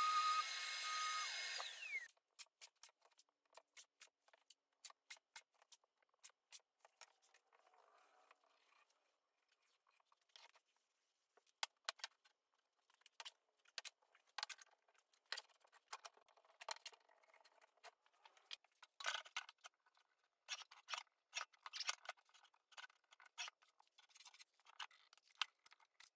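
Random orbital sander running on MDF with a steady whine, then spinning down about two seconds in. After that comes a long run of faint, scattered clicks and taps from hand work with clamps and tools.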